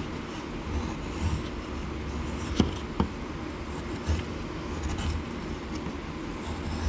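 Knife blade shaving thin curls off a driftwood wand: soft scraping strokes over a steady low rumble, with two sharp taps close together around the middle.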